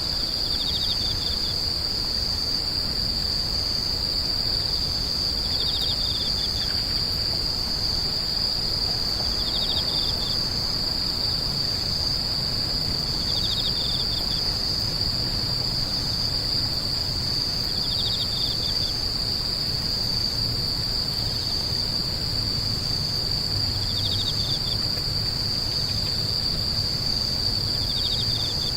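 Grass insects singing: a continuous high, steady trill, with a second insect's short pulsed chirp repeating about every four seconds just below it.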